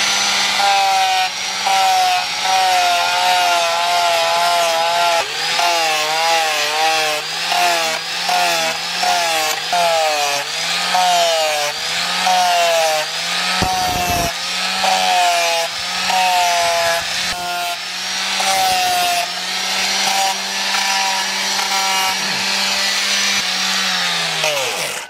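Angle grinder with a sanding pad running against a steel knife blade, its motor pitch dipping and recovering about once a second as the pad is pressed and eased along the blade. Near the end it is switched off and winds down.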